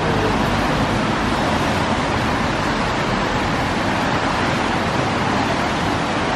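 Steady roar of busy city street traffic, an even wash of noise with no single event standing out.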